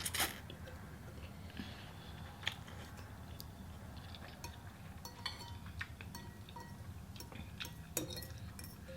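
Faint, scattered clinks and small clicks of eating utensils against bowls, a few of them ringing briefly, over a low steady hum.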